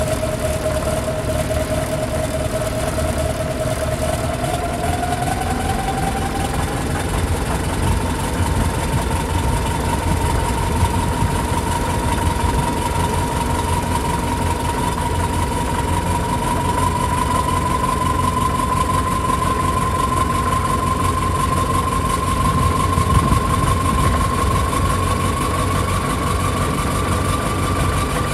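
Kirovets K-700A tractor's V8 turbo diesel running at idle, freshly started after six years standing, with a steady low rumble. A whine over the engine climbs slowly in pitch, most noticeably about five seconds in and again past the middle.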